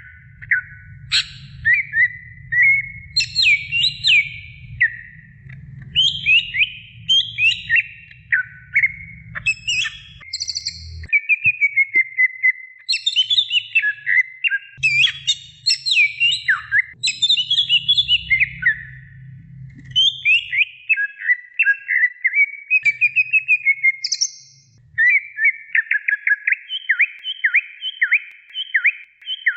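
Green leafbird (cucak ijo) singing continuously: a fast, varied run of whistled, gliding notes and chirps. Near the end it settles into a rapid series of repeated falling notes. A faint low rumble comes and goes underneath.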